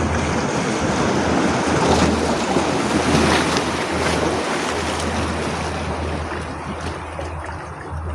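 Sea waves washing, with wind rumbling on the microphone; the wash swells over the first few seconds and eases off toward the end.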